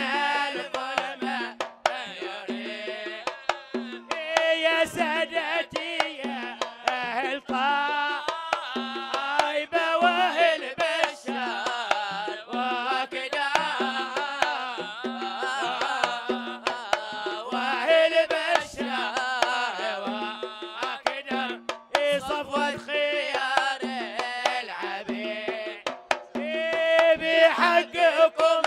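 Hadrami zarbadi folk music: a large double-headed drum beats steadily, roughly once a second, under a pitched melody from a pipe and singing.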